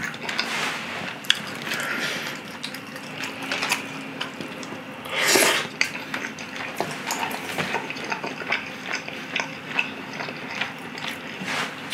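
Wet chewing and mouth smacking on saucy chicken and udon noodles, with many small clicks and one louder noisy rush about five seconds in.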